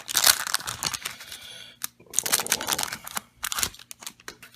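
Booster-pack wrapper being torn open and crinkled: a run of crackling rips and rustles that thins out to a few sharp clicks near the end.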